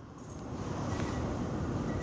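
Low, steady mechanical rumble of the 200-inch Hale telescope's machinery running as the telescope is moved. It swells over the first half second, then holds.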